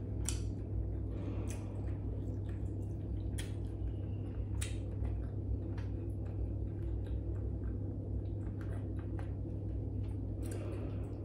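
A person eating dried salted fish by hand at close range: chewing with wet mouth smacks and scattered short clicks about every second or two, over a steady low hum.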